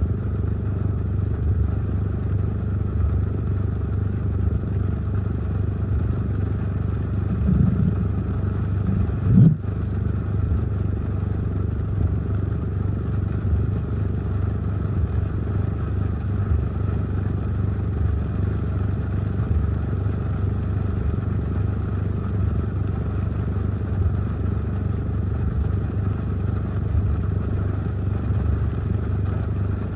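Heavy rain and gusty wind on a car, heard from inside the cabin as a steady low rumble. A single sharp thump comes about nine and a half seconds in.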